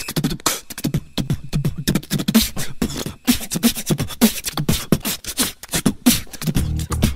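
Background music made of a fast percussive vocal beat, beatbox-style clicks and hits, with a bass line coming in near the end.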